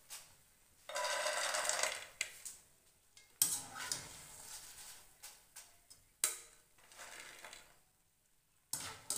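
Freshly fried besan boondi tipped from a wire-mesh skimmer onto a plate, a second-long rattling pour of many small crisp pieces. This is followed by three sharp clacks of the metal skimmer against the cookware, with a faint hiss of frying ghee between them.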